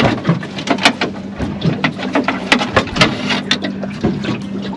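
Fishing reel clicking irregularly while a hooked bream is played and reeled in, with a steady low hum underneath.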